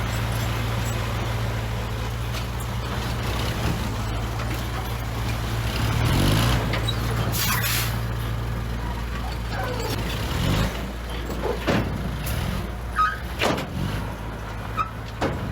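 Heavy diesel engine of earthmoving equipment running steadily, with a short hiss about halfway through and several metallic knocks and clanks in the second half.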